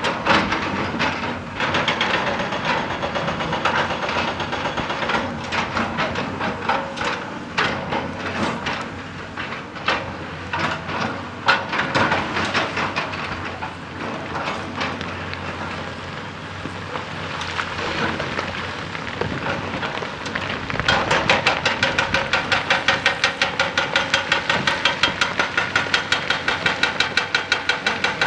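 Excavator working with irregular knocking and clatter, then about two-thirds of the way through a hydraulic rock breaker starts hammering, loud and very regular at about six blows a second.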